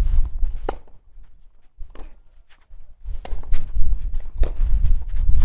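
Tennis ball and player's feet on a clay court: one sharp pop of a ball being struck or bounced about three-quarters of a second in, a quiet spell, then a run of lighter knocks and footsteps over a low rumble.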